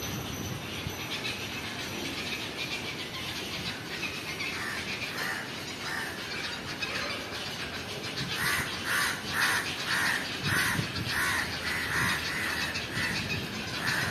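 A bird calling over and over in short harsh notes, about two a second. The calls start faint and grow louder and steadier about two-thirds of the way in.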